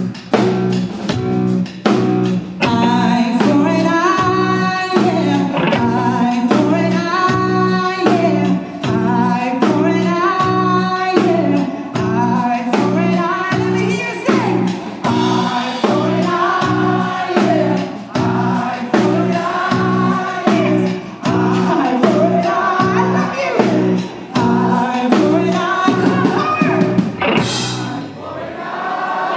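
A song with a sung melody over a band: steady bass, guitar and a regular drum beat. The music dips briefly near the end.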